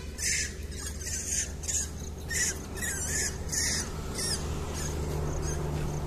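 Short, high-pitched animal squeaks and chirps, repeated about every half second, over a steady low rumble.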